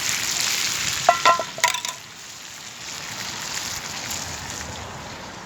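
Sausages, sweet potato and mushrooms frying in a pan over a campfire: a steady sizzle, with a few short ringing clinks about a second in. The sizzle is quieter from about two seconds in.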